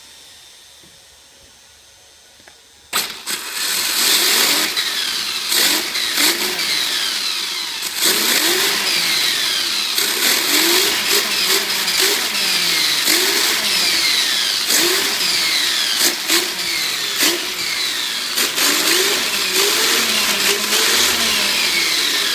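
Battery-powered RC car's electric motor and drivetrain revving hard with the wheels spinning free, a loud whine sweeping up and down in pitch with each throttle burst, over and over. It starts about three seconds in, after a faint steady hum.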